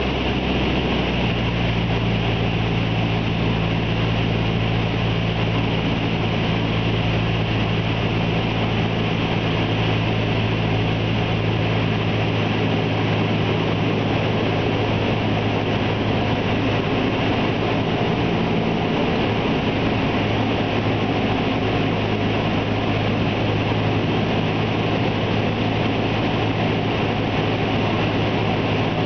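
Cessna 172's piston engine and propeller droning steadily, heard inside the cabin with wind rush, on the descent of an approach to landing. The engine note shifts slightly about a second in.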